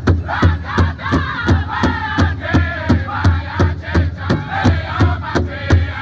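Powwow drum group singing a jingle-dress song: many high, strained voices over a large powwow drum struck in unison with sticks in a steady beat, about three and a half beats a second. Men at the drum and women standing behind them sing together, with a brief break in the voices right at the start.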